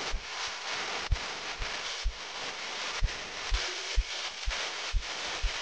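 Steady rushing noise with short low thumps about twice a second, the footfalls of someone walking while holding a phone.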